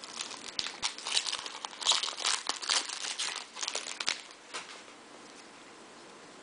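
Foil wrapper of a Bowman jumbo baseball card pack crinkling as it is opened by hand, the crinkling stopping about five seconds in.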